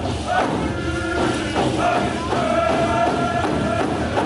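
A group of singers performing a canoe-family warrior song in unison, holding long notes, over repeated hand-drum beats.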